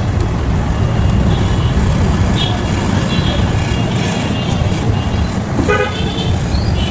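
Steady road traffic rumble with a short vehicle horn toot near the end.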